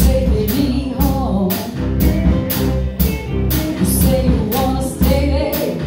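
Live band playing with a woman singing over electric guitars and a drum kit, the drums keeping a steady beat of about two strikes a second.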